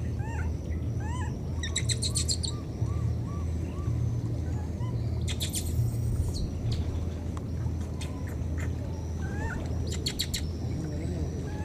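Baby macaque crying: short thin squeaks that rise and fall, repeated in a run near the start, and three bursts of rapid chattering cries, over a steady low hum.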